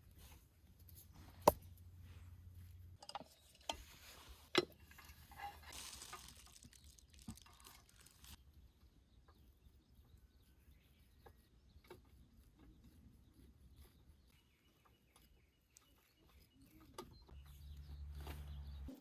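A few sharp clicks and knocks over a quiet background, the loudest about one and a half seconds in and another a few seconds later, with a low rumble near the end.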